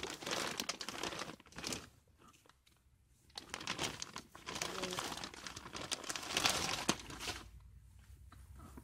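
Plastic poly mailer bag crinkling and rustling as it is opened and clothing is pulled out of it, in two spells with a short pause about two seconds in; the rustling stops about seven seconds in.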